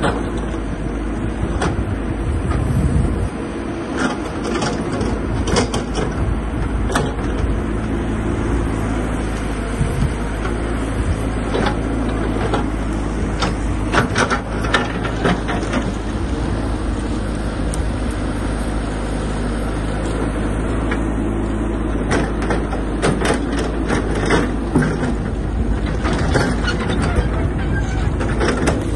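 Caterpillar tracked excavator's diesel engine running steadily, with many sharp cracks and knocks scattered throughout as the bucket works through cut brush and branches.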